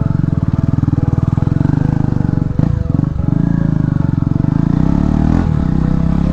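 Hero Xpulse 200's single-cylinder engine running with a steady, rapid thrum; the engine note briefly dips and rises about two and a half to three seconds in.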